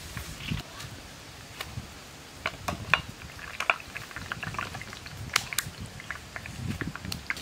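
Scattered light clicks, taps and leaf rustles as food and utensils are handled and set down on a bed of fresh leaves, with the sharpest clicks about three and five seconds in, over a low steady background rumble.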